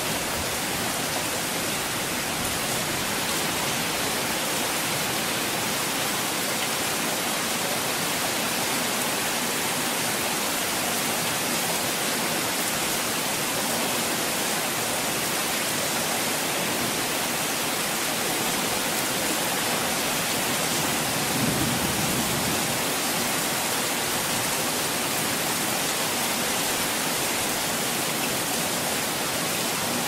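Heavy rain falling steadily: a dense, even hiss with no let-up, swelling slightly in the low end about two-thirds of the way through.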